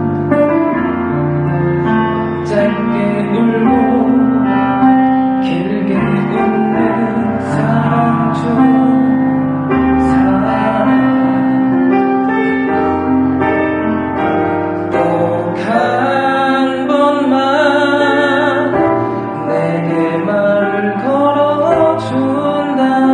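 A slow song with piano accompaniment and a singing voice, the voice wavering with vibrato on held notes for a few seconds past the middle.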